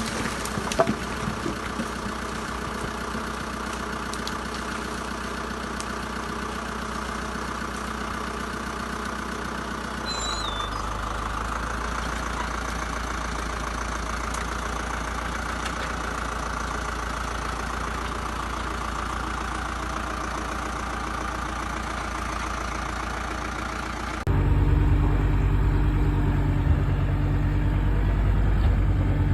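Heavy forestry machine's engine running steadily. The sound changes abruptly about ten seconds in, and again near the end, where it becomes louder and deeper.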